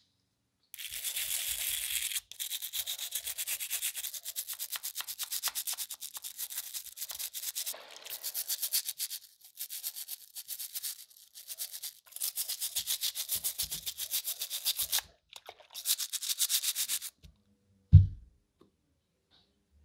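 Stiff bristle brush scrubbing the pencil sharpener's metal parts and spiral cutter in soapy water, in rapid back-and-forth strokes broken by a few short pauses. A single loud thump comes near the end.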